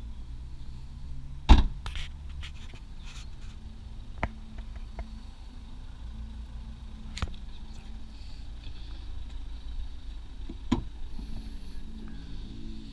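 Car tailgate being shut with a heavy thump about a second and a half in, then a few lighter clicks and knocks, with a sharper knock near the end, over a low steady rumble.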